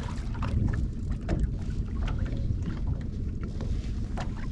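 Steady low rumble of a small trolling boat under way, with a few light knocks and clicks from gear being handled on board.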